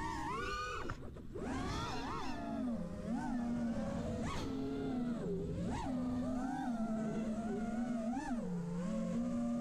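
6S freestyle FPV quadcopter's T-Motor F40 Pro 4 1950kv brushless motors and props whining, the pitch swooping up and down sharply with throttle punches. From about three seconds in it settles into a lower, steadier hum with small rises and dips.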